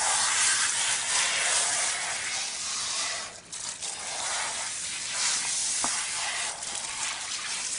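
Hissing spray of water and shampoo from an Aqua-Comb, a comb-shaped hose spray head, as it is drawn through a dog's wet coat. The spray dips briefly a little past three seconds in, then resumes.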